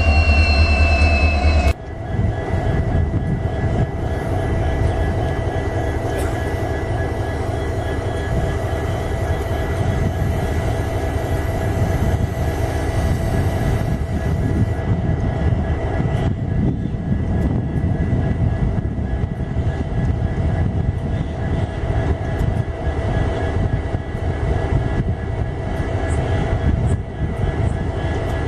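Twin EMD diesel-electric locomotives (WDG4D and WDG4) running, a steady deep engine rumble with a high, steady turbocharger hum over it. A loud steady tone cuts off abruptly about two seconds in.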